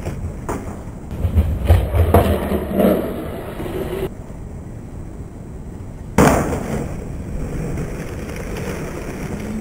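Skateboard wheels rumbling and clattering on concrete, then one sharp, loud slam about six seconds in as the skateboard lands at the foot of the stair set, followed by the board rolling on.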